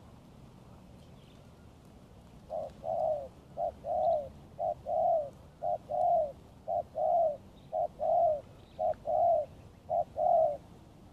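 Spotted dove cooing: eight two-part coos, each a short note followed by a longer arched one, about one a second, starting a couple of seconds in.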